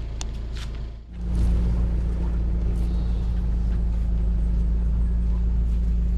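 A steady, low engine hum. It dips briefly about a second in, then comes back louder and steadier as an even drone.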